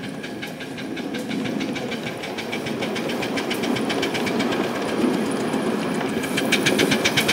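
Live-steam ride-on model of Waimanalo Sugar Co. #3 passing with its train: cars rolling on the rails with a steady rhythmic clicking and chuffing, about five beats a second, growing louder near the end as the locomotive draws close.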